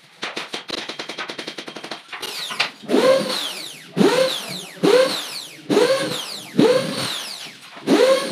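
Corded power drill driving screws into cabinet panels: rapid ticking for the first two seconds, then short trigger pulls repeated a little under a second apart, each motor whine rising quickly in pitch and winding back down.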